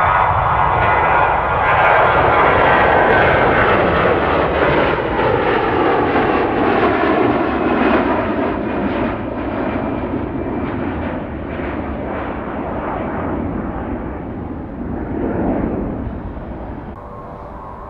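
Airbus A321 turbofan engines going past: a loud jet roar with a whine sliding down in pitch as the aircraft passes, then slowly fading.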